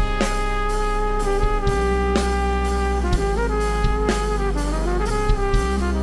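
Trumpet playing an instrumental melody of long held notes, changing pitch a few times, over a sustained bass line and occasional drum hits from a live band.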